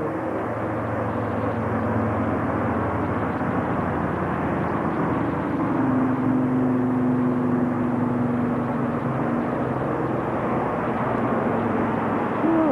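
Steady outdoor rumble and hiss, with a low drone that swells in the middle and fades again.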